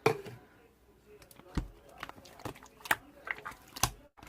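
Irregular sharp clicks and taps, with a few louder ones about a second and a half apart.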